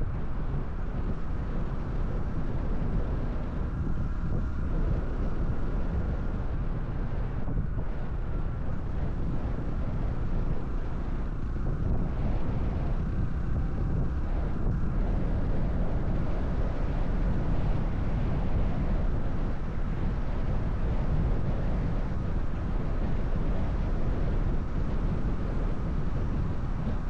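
Honda 125 cc Cub motorcycle's single-cylinder engine and exhaust running at a steady road speed, with wind rushing over the microphone.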